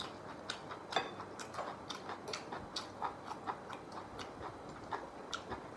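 Faint, irregular light clicks and taps of spoons and chopsticks against ceramic bowls and plates while people eat, a few small ticks each second.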